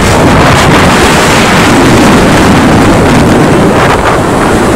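Loud, steady wind rushing over the microphone of a phone filmed from a motorcycle moving at road speed, mixed with road and engine noise.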